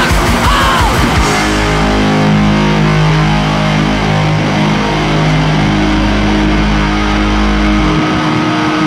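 Hardcore punk band's heavily distorted electric guitars and bass holding a long sustained chord that rings out. Near the end the low end drops away and a thin, high, steady guitar feedback tone comes in.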